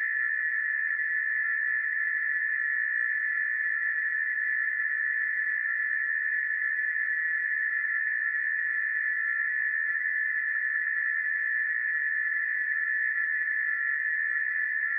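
Emergency alarm sound effect: one steady, high-pitched, slightly rough tone held without a break.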